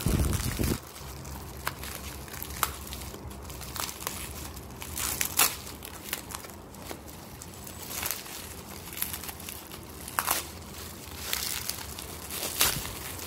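Plastic bubble wrap crinkling and crackling, with irregular sharp snaps, as it is handled and pulled off a glass item. A low thump of handling sits in the first second.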